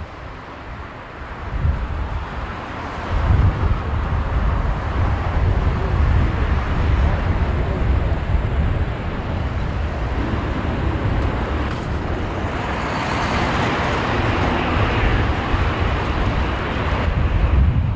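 Airbus A380's jet engines roaring, swelling about three seconds in and holding steady, with a faint whine over it midway. Wind rumbles on the microphone underneath.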